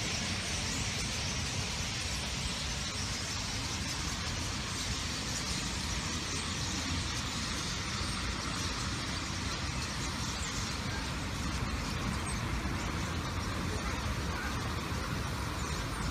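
Steady city traffic noise: a continuous low rumble with a hiss above it.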